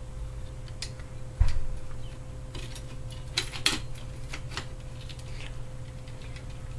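Light metallic clicks and clinks of small engine parts being handled as a flywheel brake is fitted to a Tecumseh lawnmower engine, with a dull thump about one and a half seconds in, over a steady low hum.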